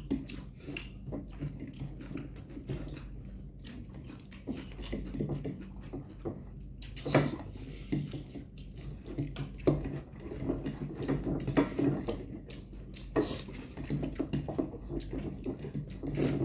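People eating noodles: chewing and mouth sounds with small clicks of utensils against bowls, over a steady low hum.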